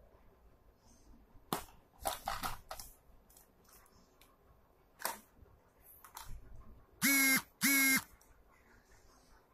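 Clicks and rattles of a plastic pencil case being opened and coloured pencils handled, then, near the end, two loud honks of steady pitch, each about half a second long.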